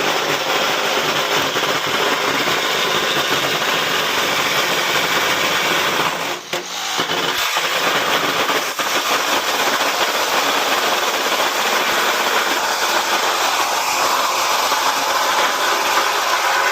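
Power saw running steadily while cutting through the metal of a tankless water heater, easing off briefly about six and a half and nine seconds in.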